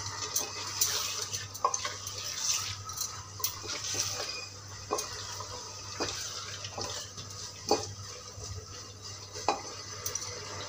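A silicone spatula stirring potatoes through frying masala in a metal pressure cooker, knocking and scraping against the pot about once a second over the steady sizzle of the frying.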